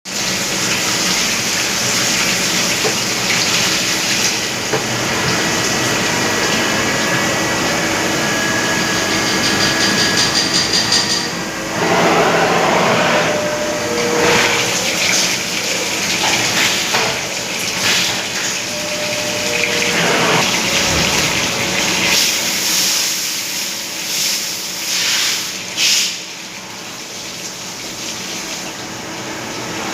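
CNC vertical machining centre running, coolant spraying and flowing in a steady hiss, with faint steady tones from the cutting and spindle.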